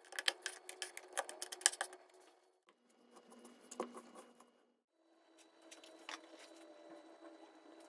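A chef's knife chopping garlic on a wooden cutting board: a quick run of sharp knocks for about two seconds. Then come softer, sparser cutting sounds as the knife goes into raw chicken.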